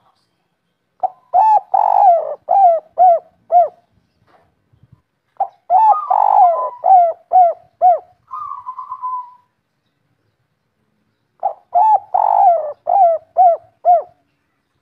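Spotted dove of the local "kuk 3" song type cooing in three phrases several seconds apart. Each phrase is a quick run of short rising-and-falling coos, and a softer buzzy note follows the second phrase.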